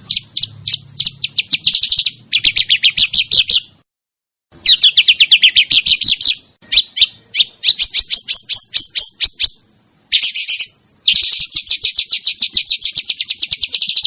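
A songbird singing rolling trills: long phrases of fast, evenly repeated high notes, about eight to ten a second, broken by short pauses about four and ten seconds in.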